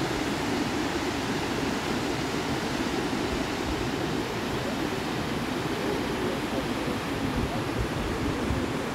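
Steady rushing of a fast mountain river through a small canyon, an even roar with no breaks.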